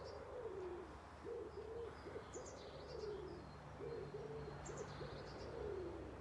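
A pigeon cooing over and over in low phrases of several notes, with small birds giving brief high chirps every couple of seconds.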